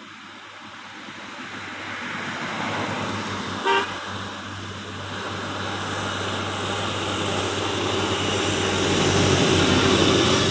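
A bus approaching along a road, its engine and tyre noise growing steadily louder, with one short horn toot a little under four seconds in.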